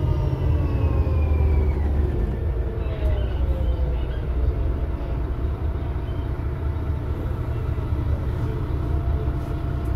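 VDL DB250 double-decker bus running, heard inside the saloon: a whining note falls in pitch and fades out over the first three seconds or so as the bus slows, leaving a steady low engine rumble.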